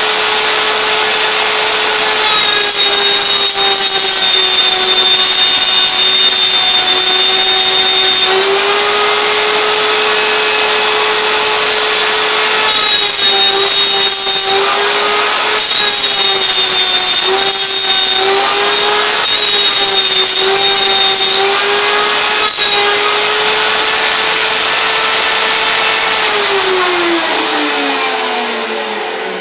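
CNC router's high-speed spindle running while a quarter-inch bit cuts parts, its pitch dipping each time the bit takes load, with a higher whine joining in at times. Near the end the spindle winds down with a falling pitch as it shuts off.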